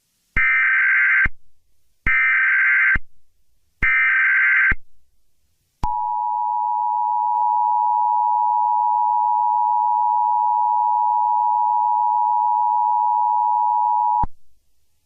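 Emergency Alert System opening tones: three short screeching SAME header data bursts about a second apart, then the two-tone attention signal held steadily for about eight seconds before cutting off sharply, announcing an emergency broadcast.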